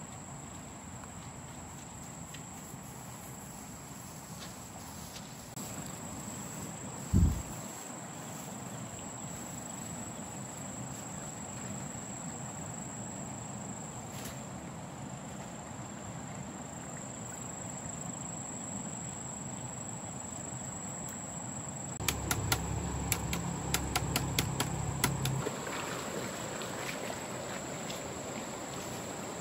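Rural outdoor ambience with a steady high insect drone throughout. A single sharp low thump comes about seven seconds in, and past twenty seconds there is a short run of rapid clicks and knocks over louder rustling.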